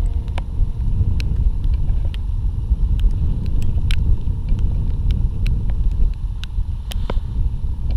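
Steady low rumble of wind and boat noise on an action camera's microphone at sea, with scattered light sharp ticks.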